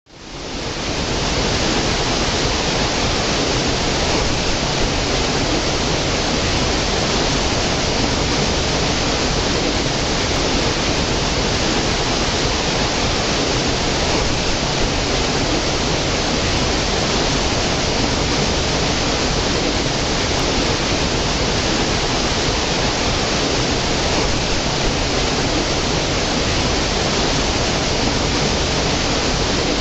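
Water of a small stream cascading over rocks into a pool: a steady rushing that fades in over the first second.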